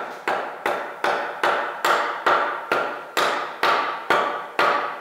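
Steel hand hammer striking the cylinder liners and cast-iron block of a Belarus 820 tractor engine in fast, even blows, about two and a half a second, each with a short metallic ring. The liners are being tapped down to seat them in the block.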